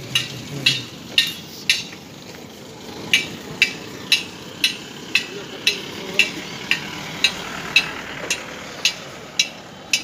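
Footsteps crunching on a dry, gritty dirt road, about two steps a second, with a short pause about two seconds in, over a faint background hum of a crowd.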